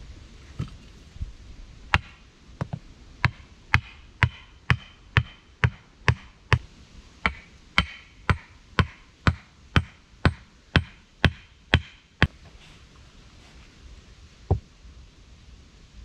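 Knocks of a tool striking wood, about two a second for some ten seconds, each with a short ring, then one more knock a couple of seconds after the run stops.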